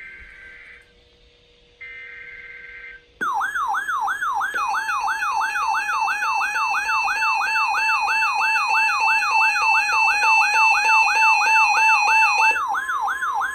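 Emergency Alert System SAME header data bursts (two short buzzing bursts), then about three seconds in a loud warbling alert tone that sweeps down in pitch about two and a half times a second, with steady tones beneath it, signalling a Tornado Watch.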